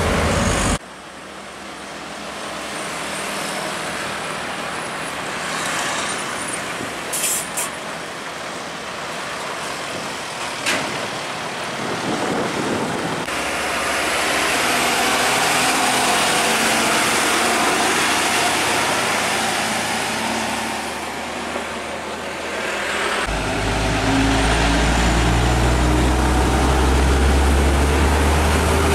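Diesel trucks passing one after another, their engine and tyre noise rising and falling. A loud passing sound cuts off sharply about a second in. From about six seconds before the end, a truck close by runs with a strong low engine rumble.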